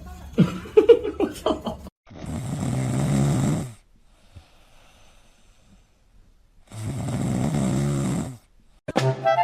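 Snoring: two long snores, each lasting about one and a half seconds, about four seconds apart.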